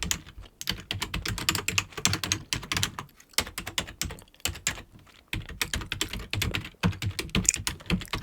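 Computer keyboard being typed on in fast runs of keystrokes, with a couple of short pauses around three and five seconds in.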